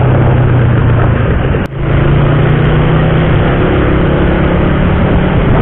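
Motorcycle engine running under way, with a steady rush of wind and road noise; the engine pitch rises a little about two seconds in, just after a brief dip in the sound.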